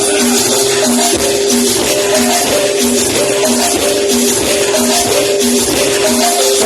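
Loud music played over a sonido sound system, with a shaker running constantly, a held tone, and a short low note repeating about every half second.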